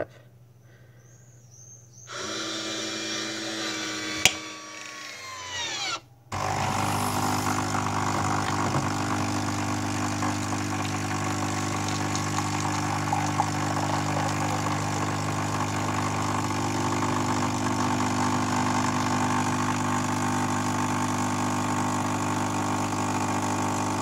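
Nescafé Dolce Gusto Drop capsule coffee machine's vibration pump running as it brews, pushing coffee out into the mug. It starts about two seconds in and sags in pitch. It stops for a moment about six seconds in, then settles into a steady, loud hum.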